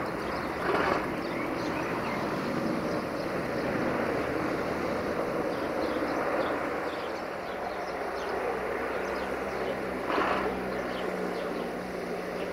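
Diesel locomotive drawing a passenger train slowly into a station, its engine giving a steady drone that firms up into a clearer note after about nine seconds. Two short bursts of hiss cut in, one about a second in and one near ten seconds.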